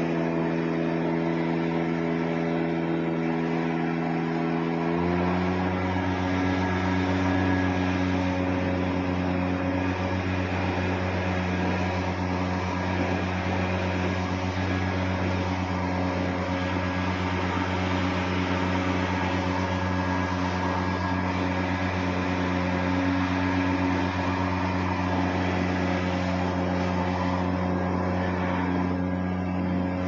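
New Holland T7.210 tractor engine running steadily, with the baler and a rush of blowing air behind it. About five seconds in, the engine speed steps up slightly and then holds.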